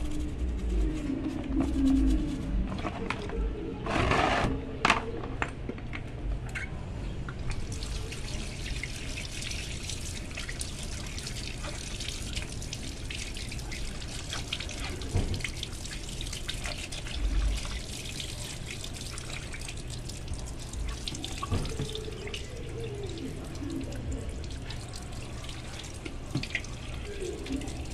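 Hands sloshing and scrubbing a motorcycle brake master cylinder in a basin of soapy water, with a few louder splashes. From about eight seconds in, a steady stream from a garden hose runs over the part and splashes onto concrete as it is rinsed.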